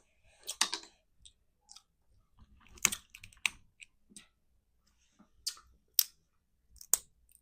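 Close-miked eating of crab legs: a handful of sharp cracks and clicks of shell being broken, a second or two apart, with faint chewing between.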